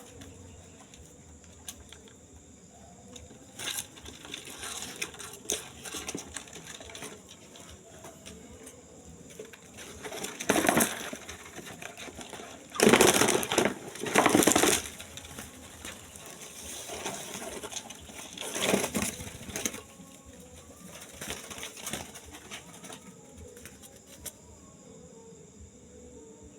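A bird's wings flapping in several short bursts of flutter, loudest in the middle, over a steady high chirring of night insects.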